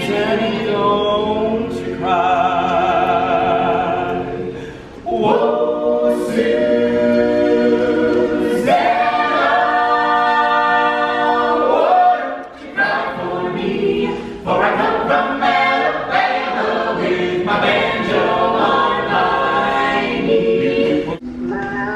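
A cappella choir singing in harmony: several voices holding long notes with vibrato, in phrases that break off briefly about five and twelve seconds in.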